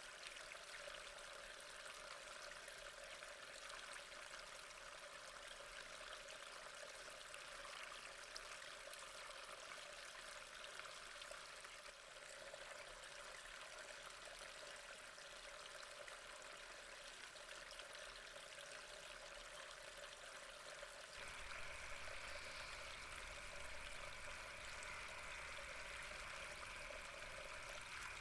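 Faint, steady sound of gently flowing, trickling water. About three-quarters of the way through the sound changes, with a brighter hiss and a low hum joining it.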